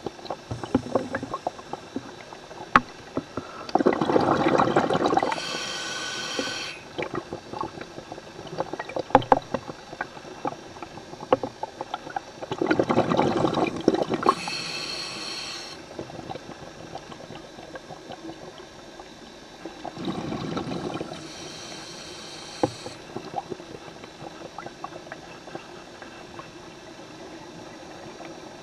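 Scuba diver breathing underwater: three slow breaths, each a burst of exhaled bubbles followed straight away by the hiss of the regulator on the in-breath, about every eight seconds. Small scattered clicks come between the breaths.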